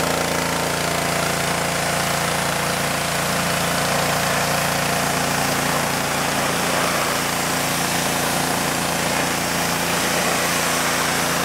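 Petrol pressure washer's engine running steadily, with the hiss of its water jet spraying a bare metal computer case.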